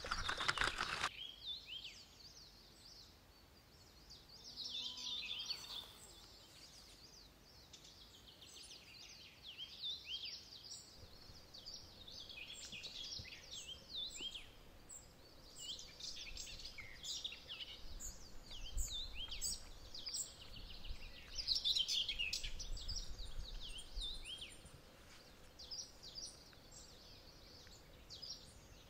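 Several wild birds chirping and singing, with many quick, overlapping chirps and sweeping notes. A louder, noisy clatter cuts off about a second in.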